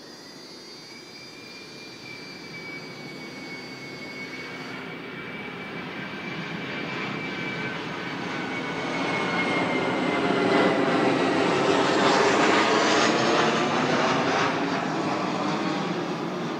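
Jet airplane passing overhead: a broad engine noise builds to a peak about two-thirds of the way through and then starts to fade, with a high whine that slowly falls in pitch as it goes by.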